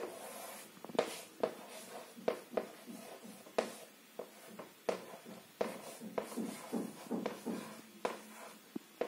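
Chalk writing on a chalkboard: a run of short, irregular taps and scrapes, about two a second, as figures are written out stroke by stroke.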